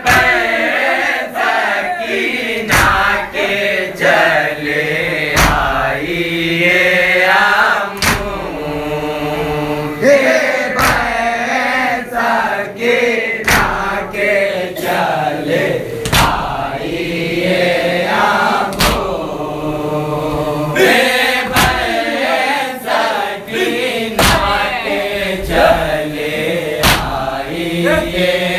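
A group of men chanting a noha, a Shia mourning lament, in unison, with sharp slaps of hands striking chests (matam) landing every second or two.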